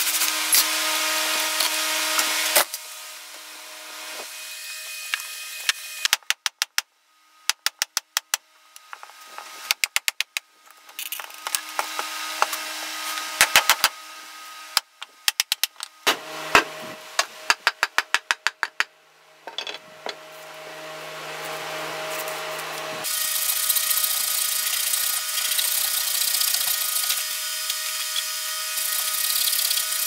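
Handsaw cutting through a log in steady strokes, then a long series of sharp wooden knocks in quick runs as an axe is driven into a log round to split it, and from about 23 seconds in a large handsaw rip-cutting a split log half.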